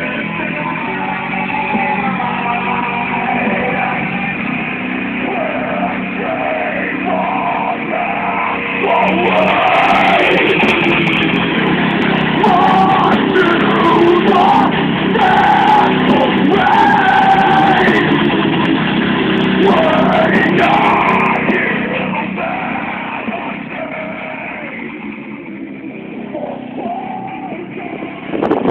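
Background rock music with singing.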